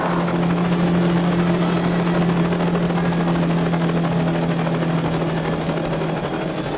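Helicopter landing on sand, its rotor and turbine running with a steady hum under a wash of rotor noise.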